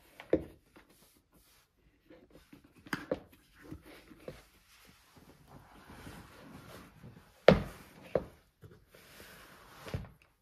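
A foot being worked into a stiff new Horween Chromexcel leather boot: leather rubbing and rustling, broken by several sharp knocks of the boot against the floor. The loudest knock comes about three-quarters of the way through.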